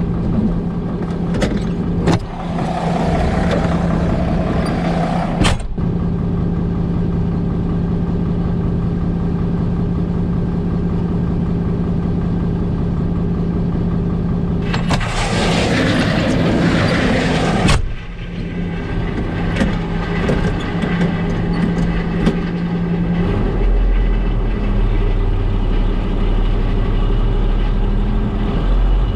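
Heavy farm machinery engine running steadily, broken by two loud hissing bursts of about three seconds each, one early and one about halfway through. Near the end the engine note shifts lower.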